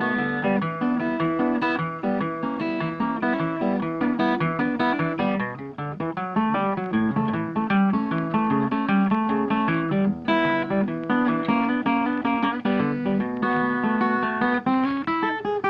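Background music on plucked guitar, a steady stream of quick notes.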